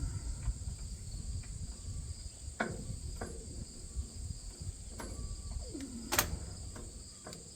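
Steady high insect chirring, with a few scattered clicks and knocks of a hand tool on metal, the sharpest about six seconds in.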